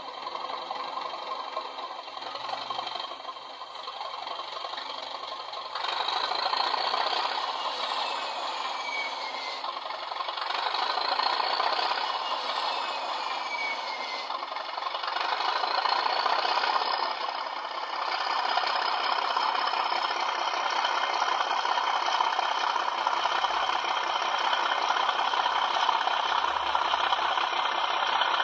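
Class 37 diesel engine sound from a model locomotive's DCC sound chip, played through a small twin iPhone speaker as the loco pulls away. It steps up in loudness twice, and whistling tones rise and fall several times. The sound is thin, with little deep bass.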